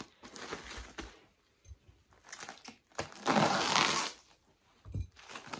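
Clear plastic stretch wrap crinkling and rustling as it is handled, in short bursts, with the loudest and longest rustle about three seconds in, lasting nearly a second. A soft thump near the end.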